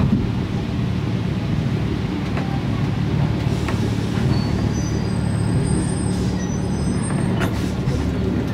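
Rubber-tyred Alstom MP05 metro train running, heard from inside the front car: a steady low rumble, with faint high whistling tones in the middle and a few short clicks near the end.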